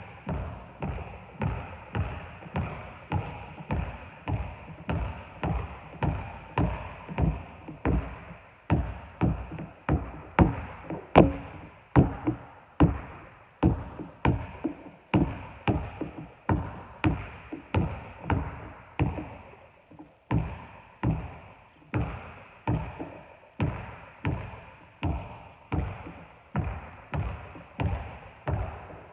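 Basketball dribbled on a wooden gym floor, a steady bounce about twice a second, each bounce echoing in the hall, with a brief break about twenty seconds in.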